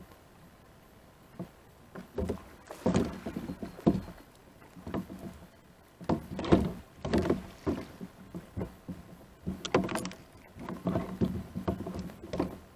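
Irregular bursts of water splashing and knocks against a kayak's plastic hull, as a hooked flathead catfish is played at the surface beside the kayak and the angler leans out to land it.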